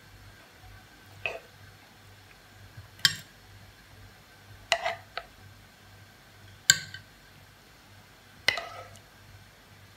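A metal fork clinking against a nonstick frying pan and a ceramic plate as chicken strips are served: about five sharp clinks, one to two seconds apart.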